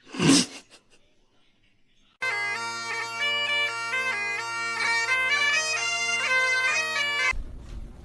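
Bagpipe music begins about two seconds in, a steady drone under a moving chanter melody, and cuts off abruptly about seven seconds in. A brief loud sound comes at the very start, and a low rumble with clicks follows the cut.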